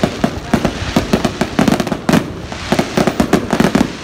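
Fireworks going off in loud, rapid volleys of sharp bangs and crackles, many a second, with a brief lull about halfway through.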